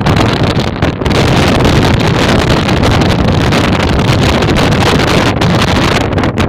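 Strong wind blowing hard across the microphone: a loud, continuous, gusting rumble of buffeting.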